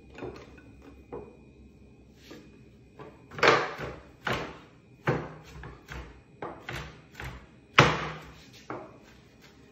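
A kitchen knife chopping raw shrimp on a plastic cutting board: a run of irregular knocks of the blade on the board, mincing the shrimp fine, with two of the strokes much louder than the rest.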